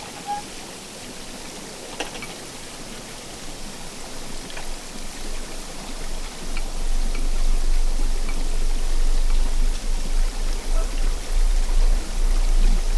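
Underwater sound of river water pouring over a weir, picked up by a hydrophone: a steady, loud hiss like white noise, with scattered faint ticks. About halfway through, a deep rumble comes in and the sound grows louder.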